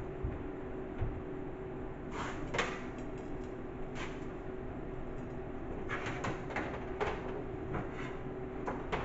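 Scattered light clicks and knocks from hand work on car body panel hardware, several in quick succession about six to seven seconds in, over a steady low hum.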